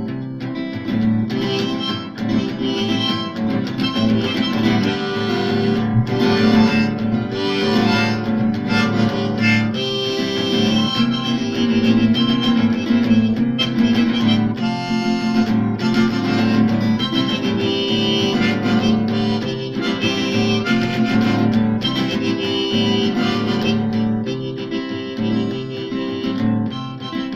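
Harmonica in a neck rack playing a solo over strummed acoustic guitar: the instrumental break between sung verses.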